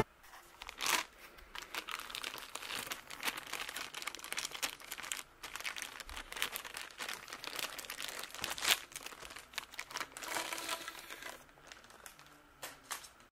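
Clear plastic packaging sleeve crinkling and rustling as it is pulled off a chrome steel pole, in irregular crackles that are loudest about a second in and near the middle and die away near the end.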